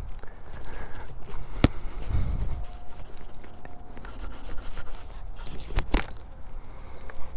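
Scraping and rubbing right against a helmet-mounted microphone, with a sharp click about one and a half seconds in and two more close together near six seconds.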